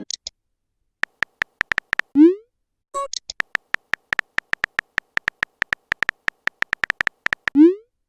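Phone keyboard typing clicks, about five or six short taps a second, from a simulated messaging app. They are broken by a short rising pop about two seconds in and again near the end, the message-sent sound, with a brief chirp about three seconds in.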